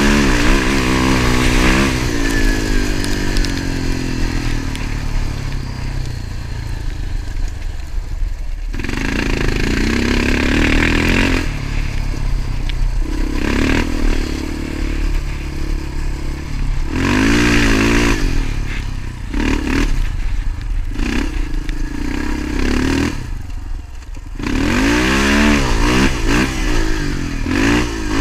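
Motorcycle engine under way, revving up and easing off again and again, with a steady low rumble underneath.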